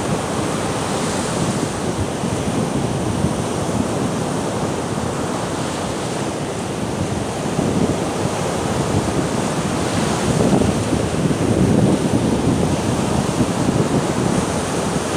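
Storm surf on the Baltic Sea: waves breaking and washing up the beach in a continuous rush that swells louder about ten seconds in.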